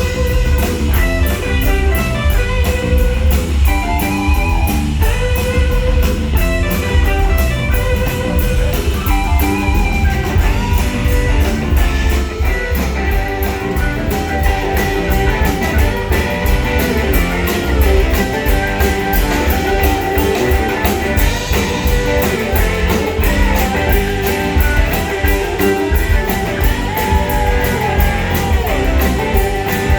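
Live rock band playing an instrumental passage: an electric guitar melody over bass and drums, with a steady cymbal beat.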